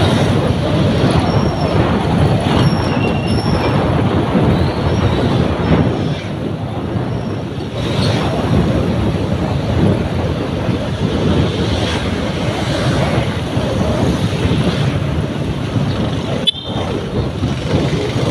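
Steady rush of wind and road traffic noise heard while riding along a road, easing briefly about six seconds in.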